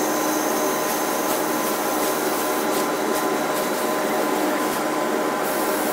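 Fiber laser cutting machine running during a cut: a steady, loud whir and hum of its motors and fans over an even noise, with faint ticks now and then.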